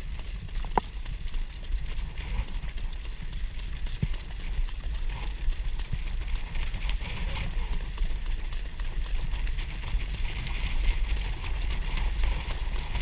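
Wind rumbling on the microphone of a camera riding on a harness-racing sulky, over the hoofbeats of the Standardbred horse pulling it at speed on a dirt track, with a steady hiss.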